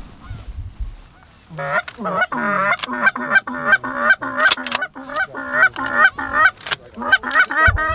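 Fast run of Canada goose honks, about four a second, each breaking from a low note to a higher one, starting about a second and a half in, with short breaks; a low thump near the end.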